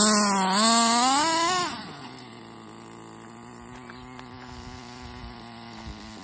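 Small 4.6 cc nitro engine of an HPI RC truggy revving with its pitch rising and falling, then about two seconds in dropping back to a steady, quieter idle.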